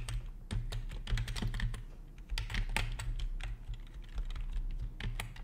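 Typing on a computer keyboard: a quick, irregular run of key clicks over a faint low hum.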